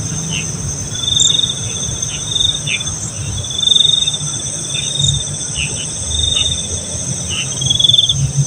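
Night insect chorus: crickets giving short pulsed trills every second or two over a steady high buzz of other insects, with short falling chirps between the trills and a low rumble beneath.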